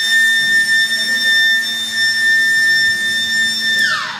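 Low-water-level alarm siren sounding one steady high tone, signalling that the fire water tank's level has dropped. It winds down in pitch and cuts off near the end.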